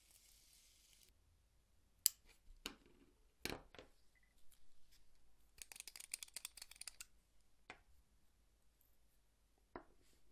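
Quiet handling sounds of small leatherworking tools: a few sharp clicks and knocks, then about six seconds in a quick run of fine clicks as a wooden needle case with a brass threaded cap is twisted open, and one more click near the end.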